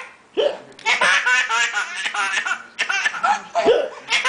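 Two short, sudden hiccups about three seconds apart, with high-pitched laughing in between and after.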